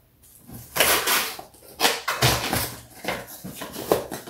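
Cardboard packaging rustling and scraping as inner inserts are worked out of a camera box, in a series of irregular quick scuffs and knocks that begin about a second in.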